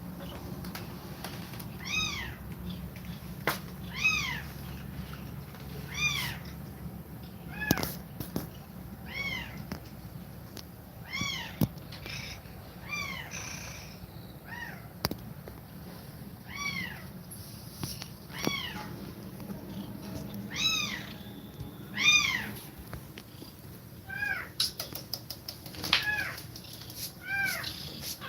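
Kittens mewing repeatedly, short high-pitched cries that rise and fall, about one every second or two, over a low steady rumble.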